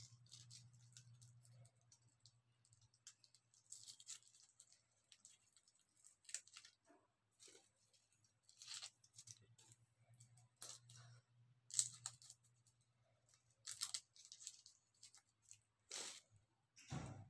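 Garlic cloves being peeled by hand: faint, irregular crackles of the dry papery skins tearing, and light taps of cloves set down on a wooden cutting board, one a little louder near the end. A faint steady low hum runs underneath.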